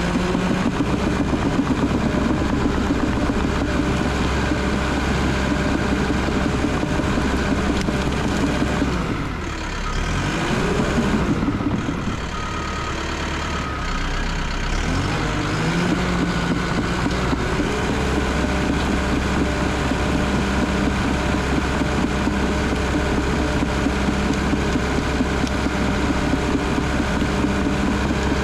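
Cat D3 bulldozer's diesel engine working steadily as the dozer pushes felled trees and brush, heard from the operator's seat. The engine note drops and picks back up around ten seconds in, and again around fifteen seconds in.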